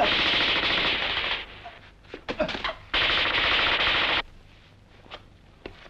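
Automatic rifle fire in two long bursts of rapid shots, each lasting over a second, with a few single cracks between them and scattered faint cracks after the second burst.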